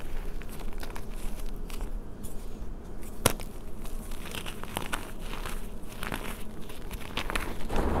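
Bare hands squeezing and crumbling chunks of reformed gym chalk in loose chalk powder: soft, irregular crunching and crackling, with one sharp crack about three seconds in.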